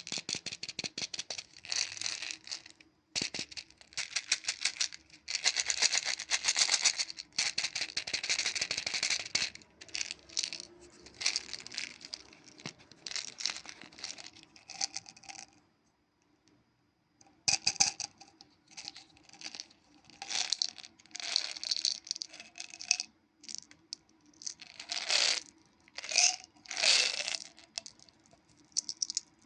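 Wrapped Chupa Chups lollipops handled in bursts: crinkly plastic wrappers and hard candies rattling and clicking together, with a pause of about a second two-thirds of the way through.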